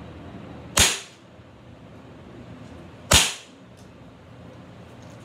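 Two shots from a BB gun, each a sharp crack with a short tail, a little over two seconds apart.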